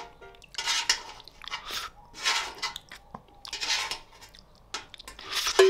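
A metal fork scraping leftover black bean sauce across a metal baking tray in about five short strokes, close-miked, mixed with the mouth sounds of eating the scrapings.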